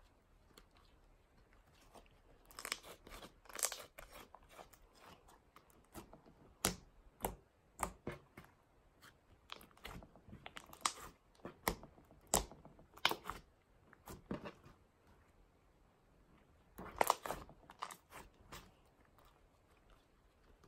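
Thick, glossy clay slime being mixed by hand with its clay topping, stretched, folded and pressed on a tabletop. It gives irregular sticky clicks and crackly pops in clusters with short pauses between.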